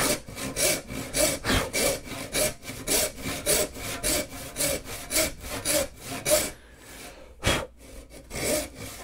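Brass-backed rip tenon saw cutting a tenon cheek along the grain of a board, in quick even back-and-forth strokes at about three a second. The strokes stop briefly about two-thirds of the way in, with a single knock, then start again.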